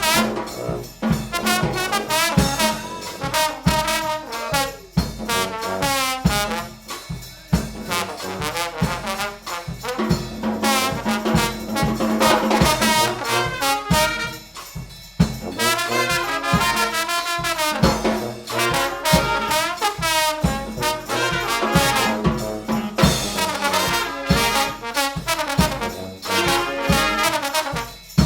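Brass band playing an up-tempo tune: trombones, trumpets and a sousaphone-style bass line over a steady, busy drum beat.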